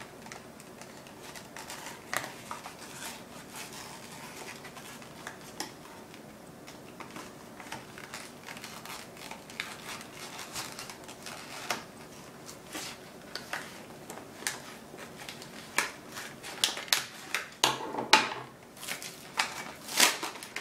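Stiff plastic blister packaging being cut at with a blade and then torn open by hand: scattered clicks and crinkles, louder and denser in the last few seconds as the plastic is ripped.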